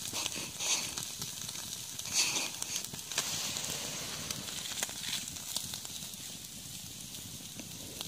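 Skewered anchovies sizzling over hot wood embers as they start to cook, with the wood fire crackling now and then.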